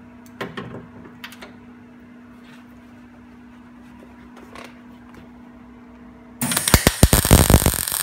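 A few light clicks over a steady low hum, then about six and a half seconds in an Esab MIG welder's arc strikes and crackles loudly, welding a replacement steel quarter panel onto the car body.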